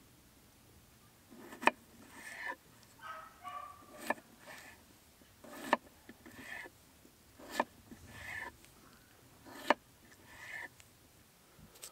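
A chef's knife cutting a red potato on an end-grain wooden cutting board: a sharp knock of the blade on the board about every two seconds, five in all, each with a softer slicing sound through the potato. A brief squeaky chirp comes about three seconds in.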